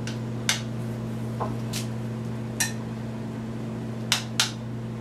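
Metal serving utensil clinking against a pan and a plate while beef and sauce are lifted out: five short sharp clicks, the last two close together near the end, over a steady low hum.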